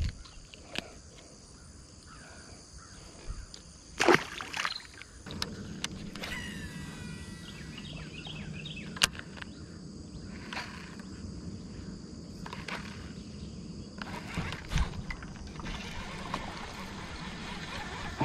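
Electric trolling motor humming steadily from about five seconds in, under the clicks and knocks of a bass being unhooked and handled, the loudest knock about four seconds in. A bird chirps briefly near the middle.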